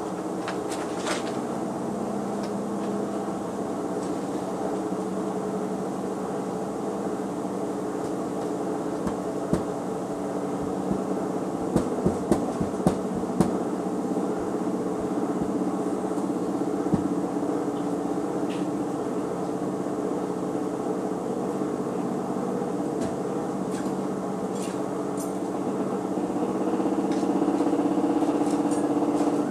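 Front-loading washing machine running with a steady motor hum, a few sharp knocks about twelve seconds in, and the hum getting louder near the end.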